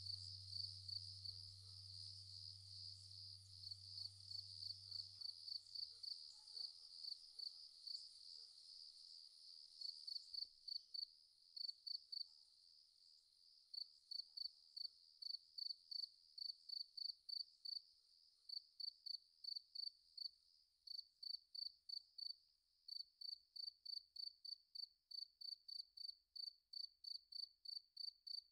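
Insect chirping, like a cricket: a long run of short, high chirps repeated about three times a second. A faint low hum runs under it for the first few seconds, then stops.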